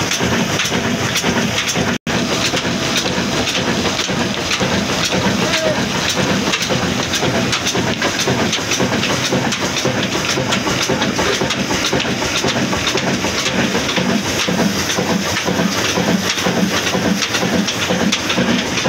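Old diesel engine running steadily with an even rhythmic beat, turning flat drive belts over their pulleys.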